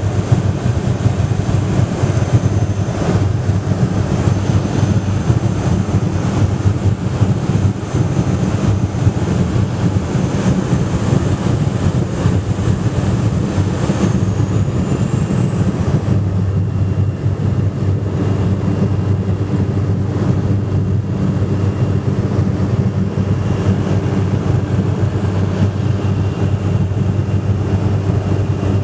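Light ski plane's engine and propeller running steadily as a loud, low drone. About halfway through, a thin high whine rises slightly in pitch and the hiss above it eases off.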